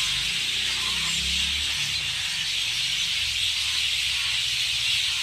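Dense evening chorus of many birds calling at once, blending into a steady high-pitched hiss, over a low rumble.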